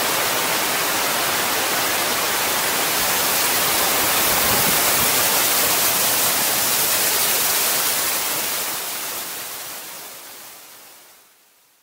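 Whitewater cascading over the stepped rock ledges of a small waterfall: a loud, steady rush of water that fades away over the last few seconds.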